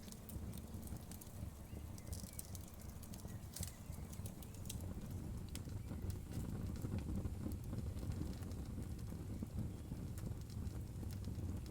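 Wood fire crackling: scattered sharp snaps and pops over a steady low rumble of burning flames, with the snaps coming thicker in the first few seconds.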